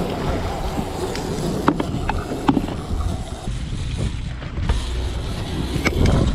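Sportfishing boat's engine running under wind noise on the microphone, with a few sharp clicks and knocks from gear being handled on deck.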